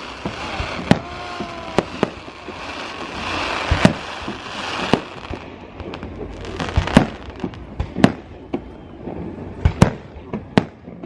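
Aerial fireworks bursting: a quick run of sharp bangs over dense crackling in the first half, then separate bangs about a second apart.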